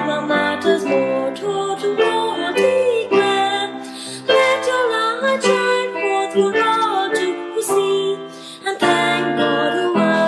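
Music from a school anthem recording: a melody over sustained chords, with no sung words.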